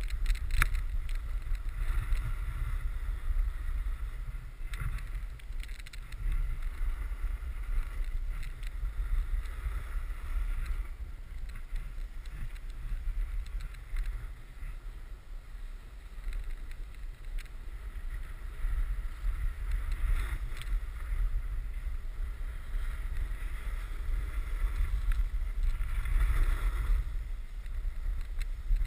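Wind rumbling on the microphone during a snowboard run, with the hiss and scrape of the snowboard's edges on packed snow swelling and fading with the turns.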